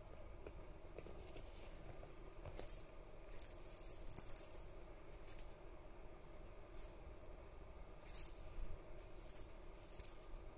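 Light jingling rattle in short, irregular bursts, the loudest about four seconds in and another cluster after nine seconds, over a faint steady hum.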